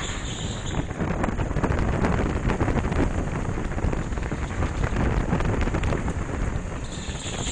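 Go-kart driving flat out along a straight, heard as heavy wind buffeting on the helmet camera's microphone over a low rumble from the kart.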